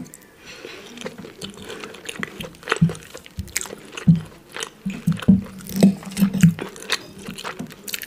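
Close-miked chewing and mouth sounds of a person eating meatloaf and boiled potato, with a run of rhythmic chews a little past halfway.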